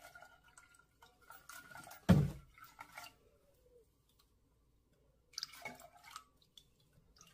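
Milk poured from a soup can into a stainless steel saucepan of tomato soup, splashing and dripping, with one loud thump about two seconds in. A second short patch of drips and clinks comes a little over five seconds in as the last of the milk drains from the can.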